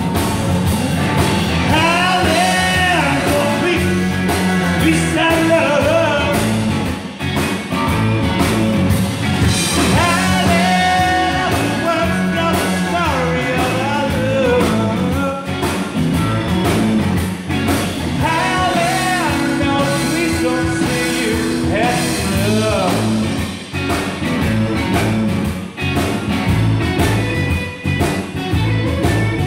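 Live blues-rock band playing: electric guitar, electric bass and drums, with a lead line that bends in pitch in repeated phrases.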